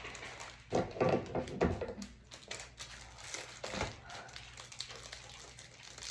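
Plastic packaging crinkling and rustling in the hands as a small plastic bag is handled and opened, with the loudest crackles about a second in and again near the four-second mark.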